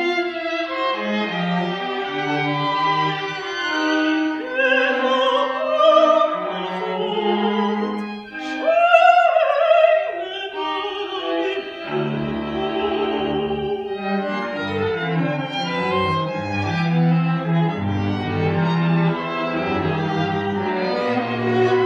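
Contemporary classical chamber ensemble playing, led by bowed strings with wavering, vibrato-laden lines. About halfway through, cello and double bass come in with sustained low notes beneath the upper strings.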